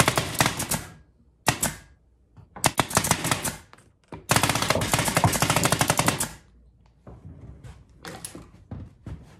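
Senco 23XSP pneumatic 23-gauge micro pin nailer driving pins into glued plywood boards: runs of rapid sharp clicks, the longest lasting about two seconds from about four seconds in, with a few fainter clicks near the end.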